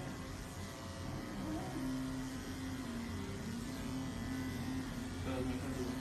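Electric pet hair clipper buzzing steadily as it shaves a long-haired cat's fur, its pitch wavering slightly.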